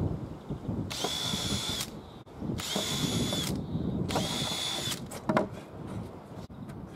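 Cordless drill boring three small pilot holes through a softwood board, in three short runs of about a second each, the motor whining up and winding down each time. A single knock follows.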